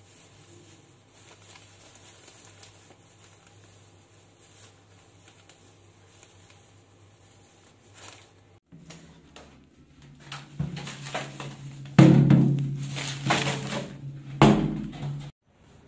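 Thin plastic grocery bag rustling and crinkling as it is tied and handled. It is faint at first, then loud, rapid crinkling in the second half, over a steady low hum, and it cuts off suddenly near the end.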